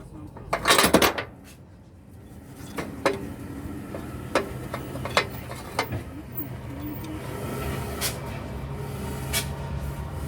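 Metal hand tools clinking and knocking at irregular intervals during work on an engine, after a short loud scrape about a second in. A low steady hum comes in from about four seconds in.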